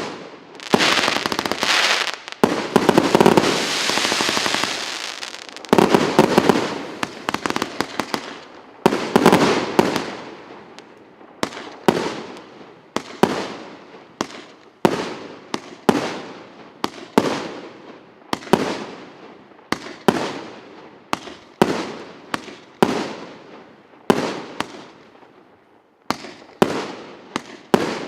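A 150-shot, 1.2-inch consumer firework battery firing shot after shot. Each shot is a sharp bang with a fading tail. The first third is a dense, crackling flurry, and after that the shots come steadily, about one a second.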